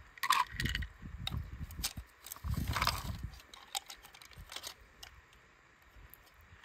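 Small die-cast metal toy cars clicking and clattering as they are handled and lifted out of a mesh pool skimmer net, with scattered sharp clicks and short handling rumbles.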